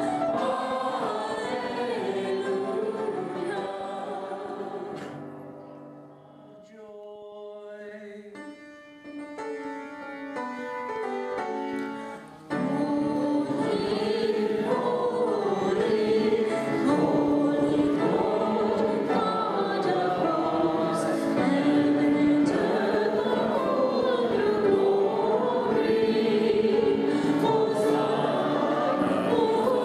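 Church choir singing a liturgical piece. About five seconds in it thins to quieter, sparser sung notes, then at about twelve and a half seconds full choir singing cuts back in suddenly.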